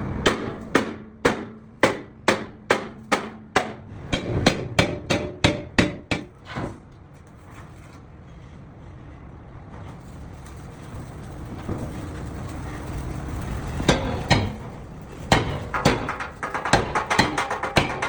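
Hammer blows on metal, about two a second, then several seconds of a quieter steady noise before the hammering resumes faster near the end.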